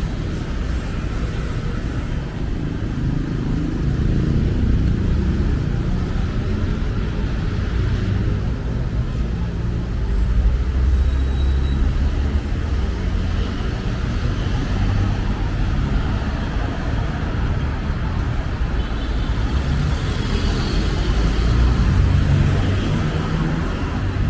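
Busy city-boulevard traffic: a steady rumble of cars and other road vehicles running past.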